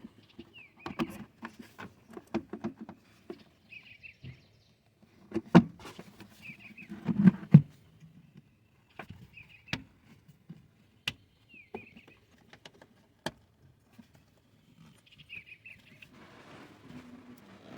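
Scattered clicks and knocks of the plastic stock airbox and its fittings being handled and refitted in a Nissan Maxima's engine bay, with two louder thumps about five and a half and seven seconds in. A bird chirps briefly every two to three seconds.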